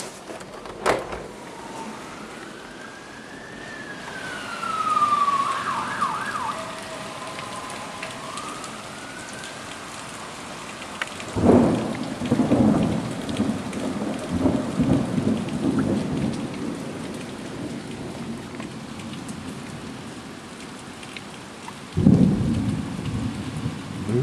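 Thunderstorm: heavy rain pouring steadily while thunder rumbles loudly about halfway through for several seconds, with another peal near the end. Early on, a siren wails up and down in the distance.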